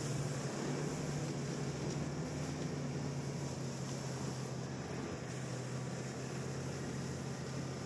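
Snowmobile engine running steadily while riding, heard from on board: a constant low hum over a steady rushing noise.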